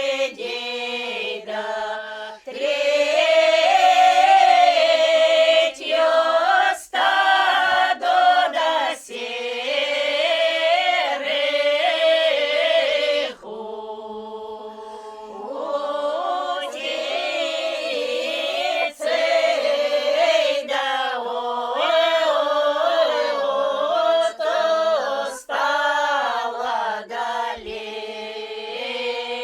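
Several voices of a northern Russian (Pomor) folk ensemble singing a drawn-out folk song a cappella, with short breaks between phrases and a softer passage about halfway through.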